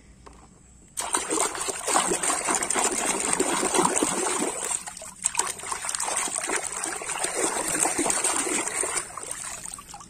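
Water splashing and sloshing in a plastic tub as a hand swishes plastic toy animals through it, starting about a second in, with a brief pause in the middle and softer near the end.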